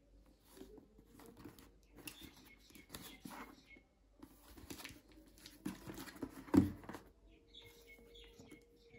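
A cardboard shipping box wrapped in plastic packing tape being handled and turned over: scattered rustles, taps and crinkles, with one louder thump about six and a half seconds in.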